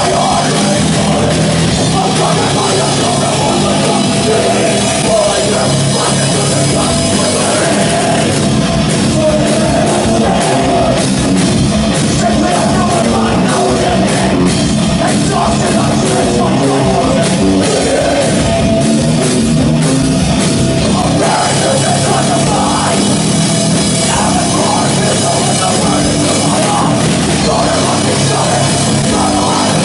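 Extreme metal band playing live: distorted electric guitar and bass over a drum kit, loud and dense, with a stretch of rapid drum and cymbal hits from about eight to twenty seconds in.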